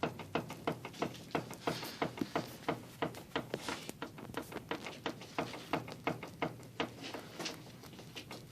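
Steering rack of a Mazda 323F BA knocking as the steering is jerked back and forth: a run of sharp knocks, about three to four a second, that grow sparser and fainter near the end. It is the steering-rack knock being traced, with the tie rod end, tie rod and boot under suspicion.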